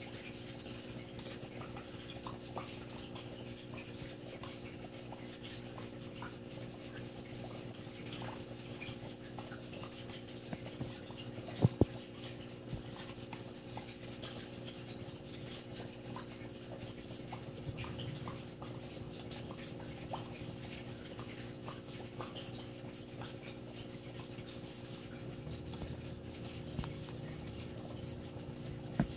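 Steady low hum of aquarium equipment, with a faint watery hiss and scattered small clicks, and one sharp click about twelve seconds in.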